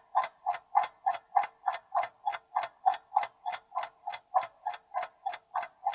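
Clock-ticking sound effect of a quiz countdown timer: short, evenly spaced ticks, about three a second.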